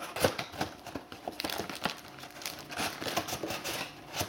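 Cardboard trading-card hobby box being opened by hand: the lid is slid off and the display flap folded up, giving irregular rustling, scraping and small clicks of cardboard.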